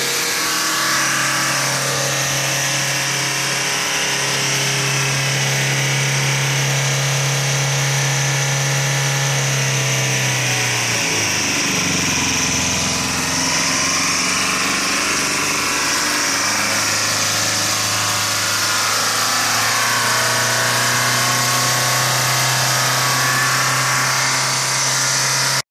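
Truck diesel engine in runaway, over-revving on its own engine oil pumped into the intake past a blown turbo seal, still running with the key removed. The revs sag briefly about eleven seconds in, then pick up and hold steady again.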